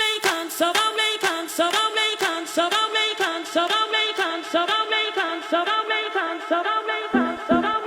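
Background music: a sung melody over a steady clicking beat, with a lower bass part coming in near the end.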